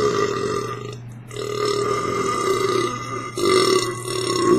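A man belching long, drawn-out burps. One trails off about a second in, then two more long burps follow with a short break between. They are the gas from chugging two litres of Diet Coke coming back up.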